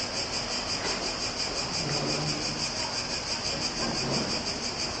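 Steady, high-pitched insect chorus with a rapid, even pulse.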